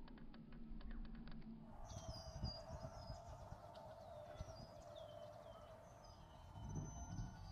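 Faint outdoor ambience: a steady background hiss with scattered short, high bird chirps from about two seconds in, several of them falling in pitch.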